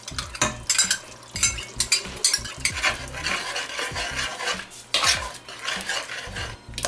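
A spoon stirring a thick chicken curry in a cooking pan, scraping and knocking irregularly against the pan, with a light sizzle of the simmering sauce.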